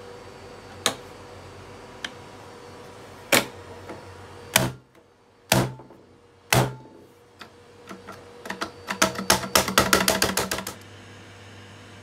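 Plastic clicks of a Miele S381 vacuum cleaner's buttons and controls being pressed and worked: a few separate clicks, some with a dull knock, then a quick run of a dozen or more clicks near the end. No motor starts.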